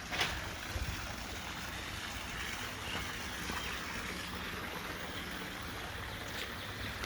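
Steady rushing of moving water in a swimming pool, with a sharp click just after the start and a soft knock just under a second in.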